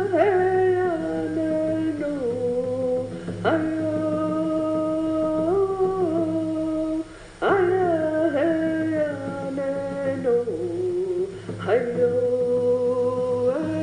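Long, held vocal notes: each starts sharply, then slides down in pitch in steps, and a new one begins about every four seconds. A steady low hum runs underneath.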